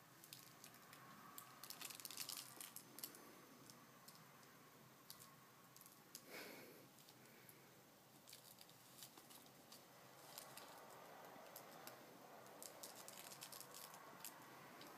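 Faint scratchy rustling and light clicks in short clusters as a cat claws, kicks and bites a small plush toy; a brief soft sound about six seconds in.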